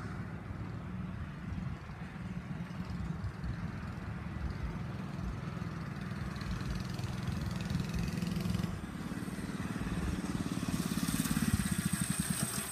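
Small mini bike engine running at a distance, a steady hum that grows louder near the end as the bike comes closer. Wind rumbles on the microphone.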